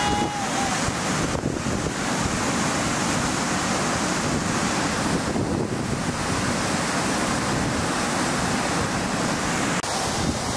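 Steady rushing wind blowing across the microphone on an open mountainside, the hiss dipping slightly now and then.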